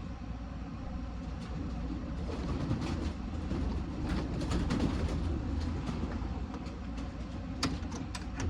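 A young racing pigeon struggling in the hand, its wings flapping and clattering in a rustling flutter, with a few sharp claps near the end.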